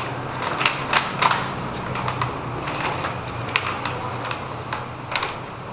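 A run of light, irregular clicks and taps, about two a second, over a steady low hum.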